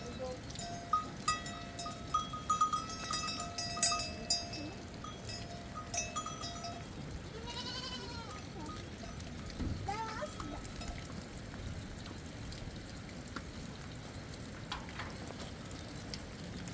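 Livestock bells clinking and ringing for the first several seconds, then a few short bleats from the flock.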